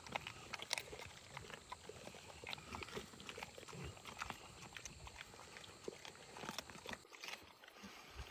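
Mastiff puppies chewing raw chicken, a faint scatter of irregular crunches and clicks.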